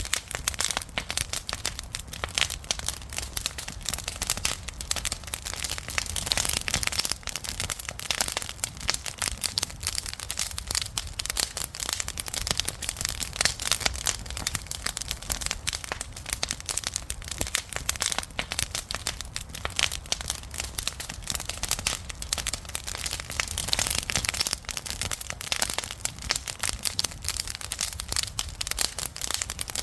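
Wood campfire crackling, with many quick sharp pops and snaps at an irregular pace over a low rumble of flame.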